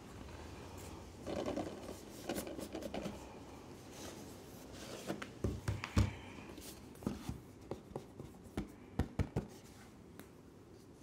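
A thin cardboard Blu-ray slipbox and the plastic cases inside it being handled. Rustling and scraping first, then a series of short, sharp knocks and clicks as the box is tipped and the cases come out, the loudest about six seconds in.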